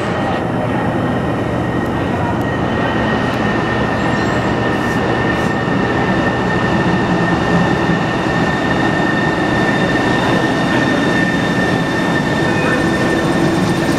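Sound Transit Link light rail train pulling into an underground station platform: a steady rumble of the train running on the rails, with a thin, steady high whine from about two seconds in that fades past the middle.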